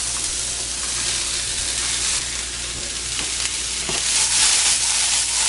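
Corn kernels sizzling in a hot frying pan, a steady hiss that swells slightly in the second half.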